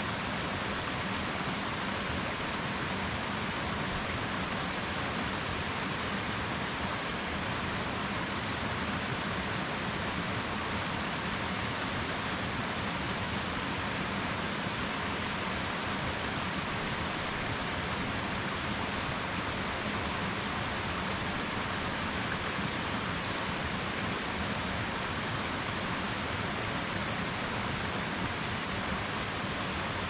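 Waterfall: a steady rush of falling water that holds an even level throughout.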